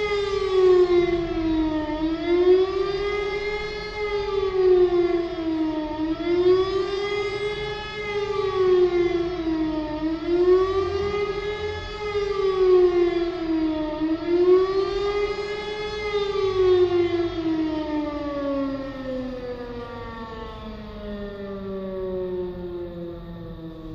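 Civil-defence siren sounding the rising-and-falling 'Warnung' signal in a test alarm. Its pitch swells and sinks about every four seconds. About two-thirds of the way in, it winds down in one long falling glide.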